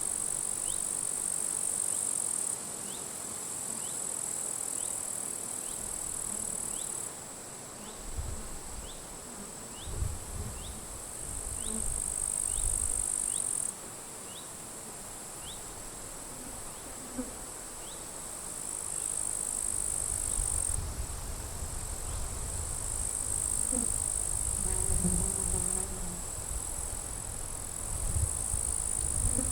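Grasshoppers stridulating in dry grass: a high, hissing buzz that stops and starts in bouts every few seconds. A faint short chirp repeats steadily through the first half. Wind gusts on the microphone from about a quarter of the way in, growing stronger near the end.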